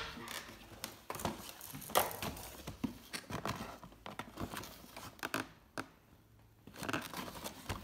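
Scissors cutting at a cardboard toy box, with the packaging crinkling and tapping as it is handled, in irregular snips and rustles with a short pause near the end.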